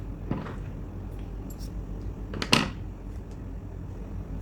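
Two brief knocks from handling the crochet work and tools while fastening off the yarn, the second, about two and a half seconds in, the louder, over a steady low hum.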